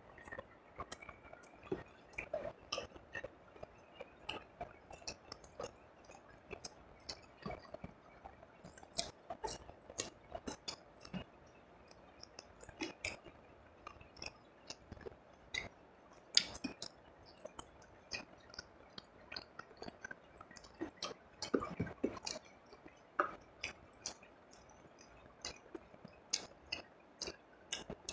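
Close-miked chewing of fried rice and fried fish: many small wet mouth clicks and smacks, with a few louder ones near the end.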